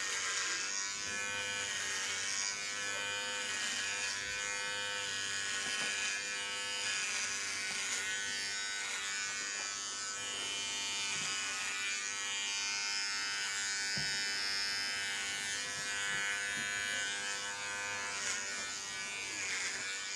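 Electric hair clippers buzzing steadily as they cut short hair close to the scalp, the tone changing a little from moment to moment.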